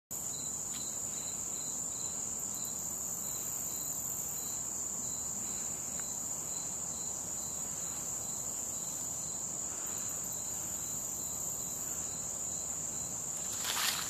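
Steady high-pitched insect chorus trilling without a break, with a fainter insect call pulsing evenly beneath it. Near the end, footsteps crunch on dry leaves.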